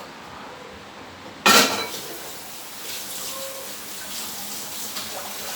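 A short loud sound about a second and a half in, then water running steadily.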